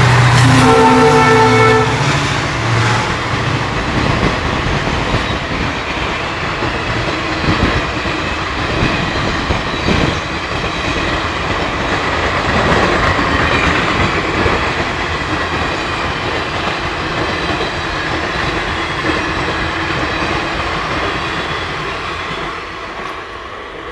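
A train horn sounds a steady chord for about the first two seconds. Then the coaches of an Indian Railways express passenger train roll past with a continuous rumble and wheel clatter over rail joints, fading near the end.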